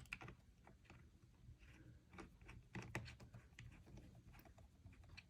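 Faint, irregular small clicks and ticks of a small screwdriver turning the bottom-cover screws of a Dell XPS 17 laptop.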